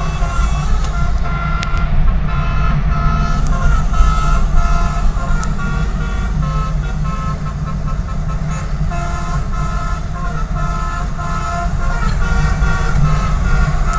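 Bus telolet horn sounding a series of short and held notes of several pitches over the steady low running of the bus engine.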